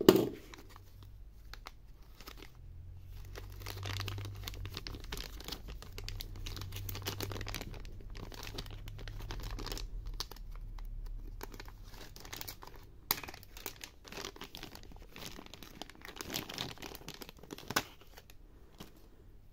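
Clear plastic packaging crinkling and rustling as it is handled and pulled off a wristwatch and out of a small zip-lock bag. A sharp knock right at the start, and a couple of sharp clicks later on.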